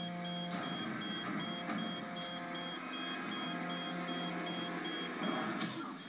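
Short high electronic beeps repeating evenly about two and a half times a second over a steady low drone, stopping shortly before the end.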